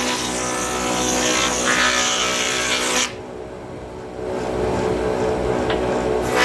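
Bench-mounted wood router running at high speed, a steady motor whine with hiss. It drops away suddenly about three seconds in and comes back up a second or so later.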